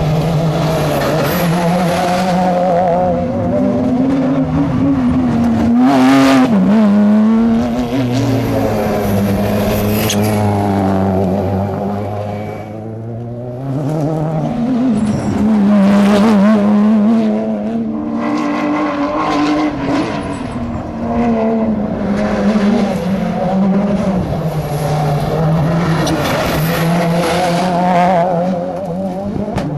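Rally car engine driven hard, its pitch climbing and dropping again and again through gear changes and lifts off the throttle, with a brief quieter spell near the middle.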